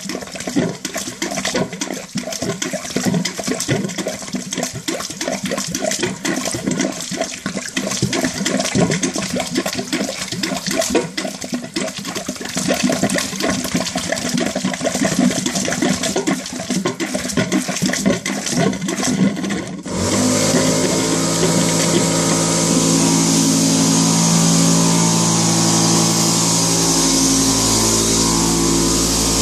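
Brown, sludge-laden water flushed out of a heating circuit gushing from a hose into a toilet bowl, splashing steadily. About twenty seconds in, a motor starts abruptly and runs steadily with several steady tones, as the hydrodynamic flushing is set going.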